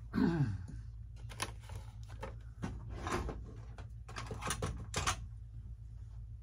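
Irregular clusters of light clicks and rattles from small hard tools and parts being handled, such as screwdrivers and screws picked over, with a short falling voice-like hum at the start. A steady low hum runs underneath.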